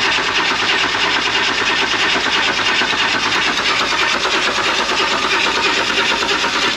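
BMW 135i's inline-six being spun over on the starter motor in a fast, even cranking rhythm, with the ignition coils unplugged so it cannot fire: priming oil through the turbo before the first start. The cranking cuts off at the end.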